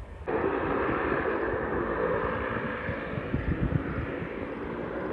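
Jet airliner's engines heard from a distance: a steady rush with a faint whine, starting suddenly just after the start.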